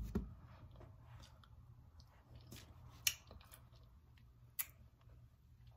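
A table knife spreading creamy peanut butter on a slice of soft white bread: faint scraping, with a few sharp clicks.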